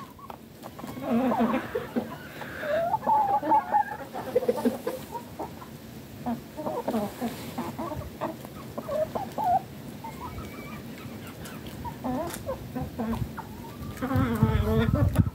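A flock of chickens clucking and calling in short, scattered calls, with a louder run of calls near the end.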